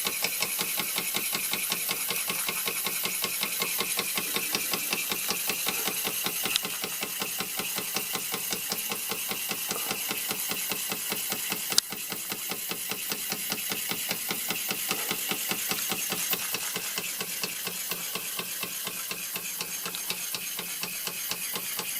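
1926 Bing toy live-steam engine running fast under steam, driving a small toy grinder, with a rapid, steady mechanical beat and a chuffing exhaust. A single sharp click comes about halfway through.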